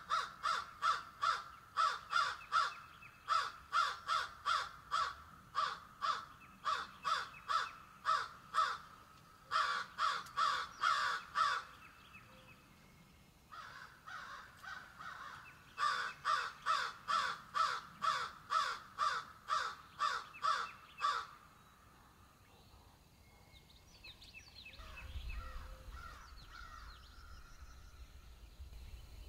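A crow cawing in a long, steady run of harsh caws, about two a second, with a short break around the middle, then falling away for the last several seconds, where a low rumble comes in.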